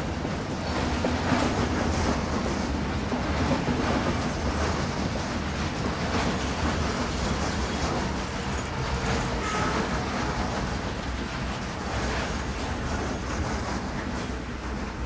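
Container freight train's flat wagons rolling past close by: a steady rumble of steel wheels on the rails with repeated clacks. A thin high whine rises for a few seconds near the end.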